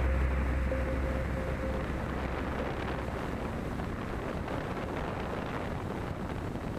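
Steady rush of wind over the onboard camera's microphone on a model plane in fast, low flight.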